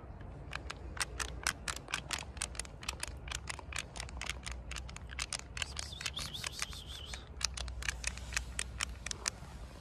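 A rapid run of sharp clicks, about five a second, stopping shortly before the end, with a brief warbling high whistle about six seconds in.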